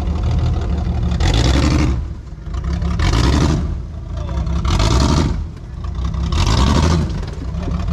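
A 4x4's engine revving in repeated bursts, about five throttle blips spaced roughly a second and a half apart, over a steady low engine rumble.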